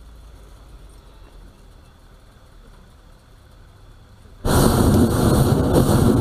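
Hot-air balloon propane burner firing: a sudden loud roar cuts in about four and a half seconds in, over a faint low hum.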